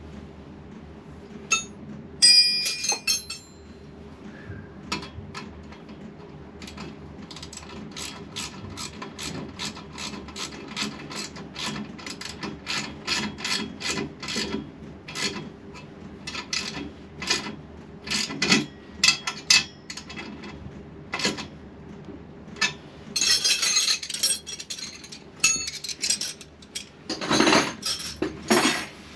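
A long series of sharp mechanical ratcheting clicks, about two a second, from work on a motorcycle's rear wheel, with denser, louder metallic clattering near the end.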